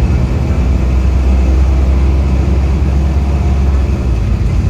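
Optare Solo single-deck bus heard from inside the saloon while driving: a loud, steady low rumble of engine and running gear with road noise over it.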